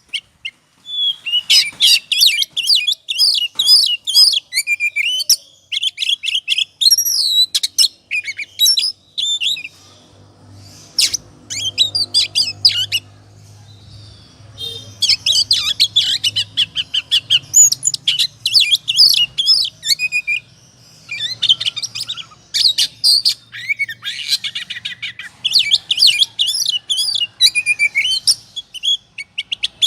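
Oriental magpie-robin (kacer) singing in its agitated, aroused 'ngobra' state: fast runs of loud, varied whistles, trills and chattering notes. The song drops out for a few seconds near the middle, then resumes just as densely.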